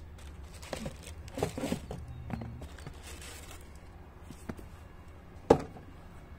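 Hands lifting running shoes out of a cardboard shoebox lined with tissue paper: rustling and crinkling of the paper and handling noise in the first few seconds, then a single sharp knock a little after five seconds in, the loudest sound.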